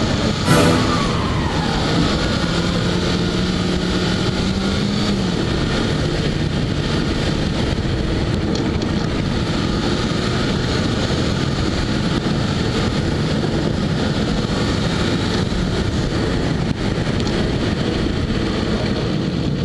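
Road and wind noise from a camera taped to the front bumper of a moving Peugeot 206, with the car's engine note heard underneath. The engine tone rises slightly and then drops away about five seconds in. A single sharp knock about half a second in.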